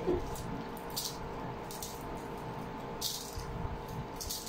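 Eating sounds: a few short, crisp crunching and crackling bursts as fried dried fish and other food are picked at by hand and chewed, over a faint steady hum.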